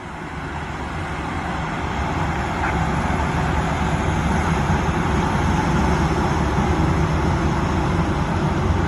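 Steady low rumble of a vehicle in motion, fading in over the first couple of seconds and then holding level.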